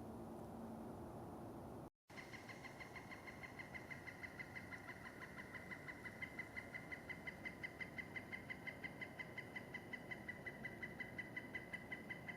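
After a brief dropout about two seconds in, an animal calls in a long, unbroken train of rapid high pulsed notes, about five a second.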